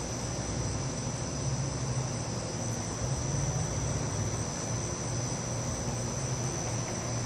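Crickets trilling steadily in one continuous high pitch, over a steady low rumble.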